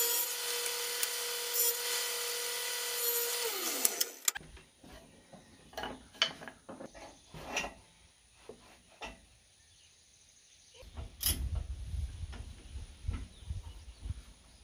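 An inexpensive table saw running with a steady hum and whine, then winding down with falling pitch once switched off, stopping about four seconds in. After it, light clicks and knocks of wood being handled.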